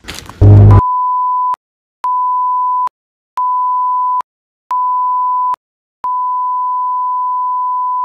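A brief, very loud burst of noise, then a steady, single-pitched electronic beep: four beeps of under a second with short gaps, then one long unbroken tone. It is a device's out-of-storage alert.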